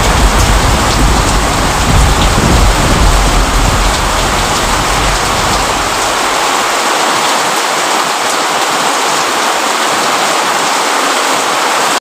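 Steady rain falling, with a low rumble of thunder through the first half that dies away about six seconds in.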